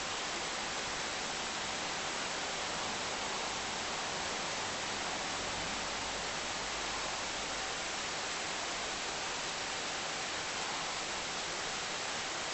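A steady, even hiss with no changes or separate events, and a faint steady tone in the middle of it.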